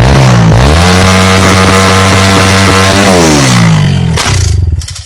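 An ailing engine, said to be acting up and unable to rev properly, revved up, held for a couple of seconds, then let fall back, with a wavering pitch at the start.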